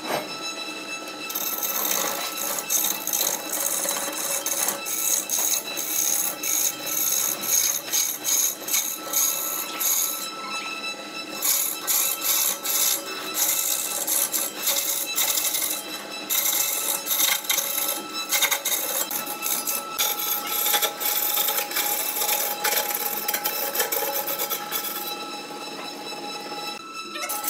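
Wood lathe running with a steady whine as a hand-held turning tool is pressed against a large spinning wooden blank, giving an irregular, gritty scraping that comes in spells with brief lulls.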